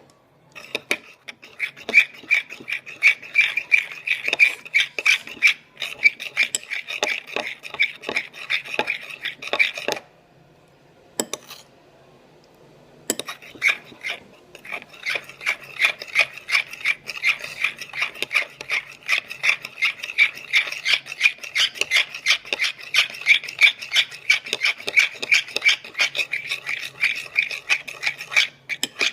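Slime mixture being stirred and scraped around a bowl, with fast repeated rasping strokes, several a second. The stirring stops for a few seconds near the middle, with a knock or two, then starts again.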